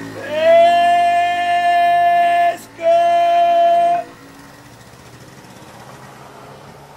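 A voice holding one long high sung note that glides up at the start and then stays on one pitch. It breaks off briefly about two and a half seconds in, takes up the same note again, and stops about four seconds in.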